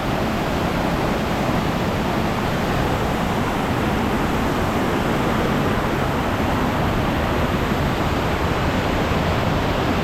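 Steady rush of river water tumbling over rocks and falls: an even, unbroken hiss.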